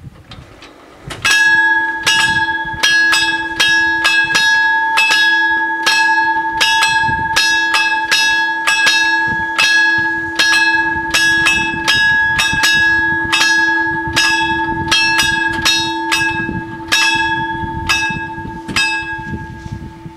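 The two warning bells of an Italian level crossing ringing, starting about a second in: bright, ringing strikes repeated about two or three times a second, the two bells out of step with each other, warning that a train is coming and the barriers are closing.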